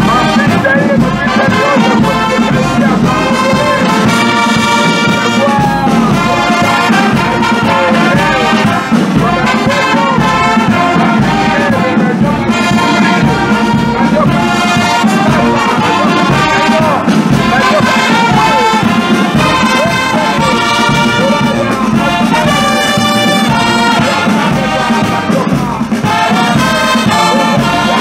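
Large brass band playing, led by trumpets and trombones with sousaphones.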